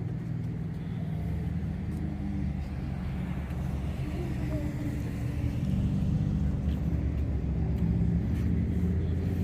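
Motor vehicle running: a steady low engine and road rumble that slowly grows louder.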